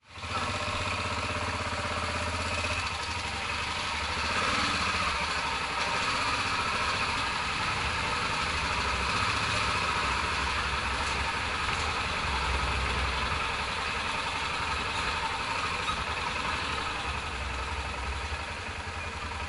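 Motorcycle running at low speed, heard from a camera mounted on the moving bike: a steady low engine drone with an even hiss over it.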